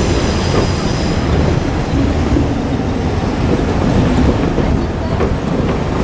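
JR Kyushu KiHa 47 diesel railcar running on the line, a steady heavy rumble of engine and wheels on rail.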